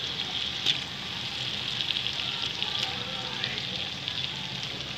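Raw chicken pieces sizzling as they go into hot oil and masala in an aluminium pot, a steady frying hiss with a few sharp clicks, the loudest about three-quarters of a second in.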